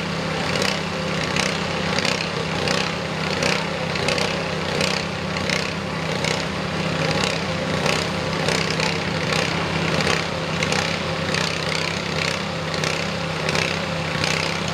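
Massey Ferguson lawn garden tractor's small engine running steadily at idle, with a faint regular pulse about every three-quarters of a second.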